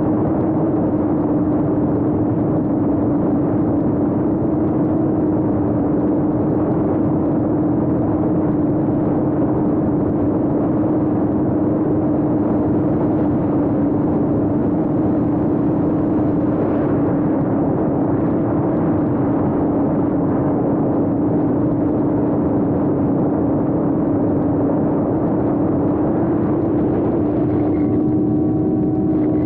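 A 7-inch GepRC Mark 4 FPV quadcopter's brushless motors and propellers, heard from the camera on board, holding a steady, loud whine at nearly constant pitch as it cruises low. Near the end the whine turns richer, with higher tones added as the throttle changes.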